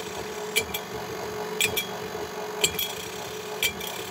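KitchenAid tilt-head stand mixer running on slow with a steady motor hum. A quick double metallic click comes about once a second as the flat beater sweeps over a dime in the bottom of the steel bowl. The dime only moves now and then, which shows the beater height is set about right.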